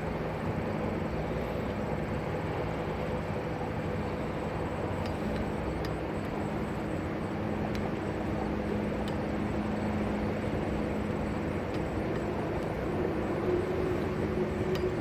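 Steady drone of interstate highway traffic, tyres and engines, growing a little louder near the end.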